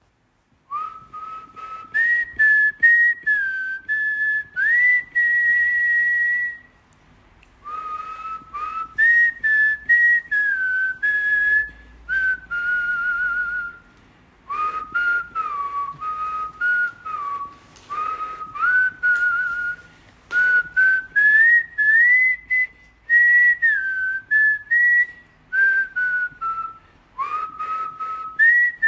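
A person whistling a slow melody in a clear, pure tone. Phrases of stepped and gliding notes are broken by brief pauses for breath, with a short warble a little before the middle.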